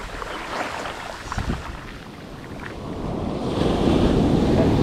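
Surf breaking and washing up the beach, growing louder about three seconds in, with wind buffeting the microphone.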